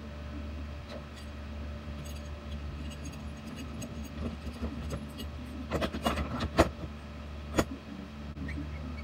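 Metal tools and roller-furler parts being handled on a workbench: a run of clinks and knocks, sharpest in the second half, over a steady low hum.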